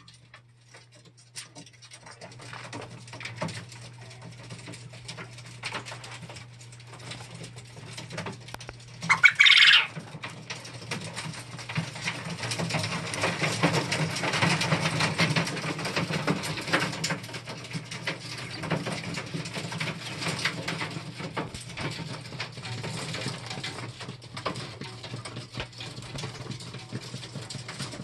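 Caged Jumbo Wild coturnix quail: scattered small clicks of pecking and scratching on the wire floor and drinker cups over a steady low hum, busier for a few seconds in the middle. About nine seconds in comes one short, loud, high call from a quail.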